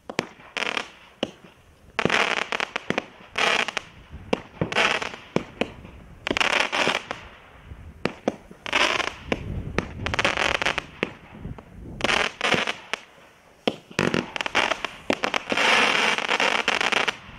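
A 16 mm quiet firework cake (Celtic Fireworks 'Spit Crackle Strobe') firing shot after shot: sharp launch pops, each followed by a burst of dense crackling, about every second and a half. The longest run of crackling comes near the end as the cake reaches its crackle finale.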